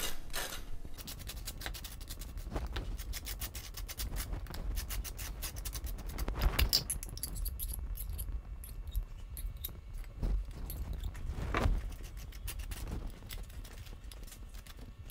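Table knife scraping across crisp toast as butter and jam are spread, a run of short rasping strokes with a few louder clicks of the knife against the plate and jam jar.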